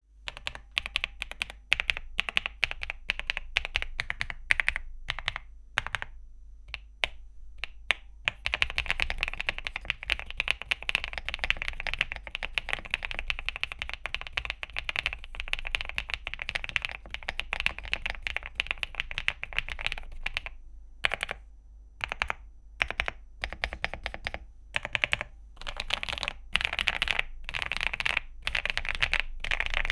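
Typing on a Zuoya GMK87 mechanical keyboard with HMX x KineticLabs Butter linear switches and KOL-profile dye-sub PBT keycaps. At first the keystrokes are slower and separate; about eight seconds in the typing turns into a fast continuous run, and near the end it comes in short bursts with brief pauses.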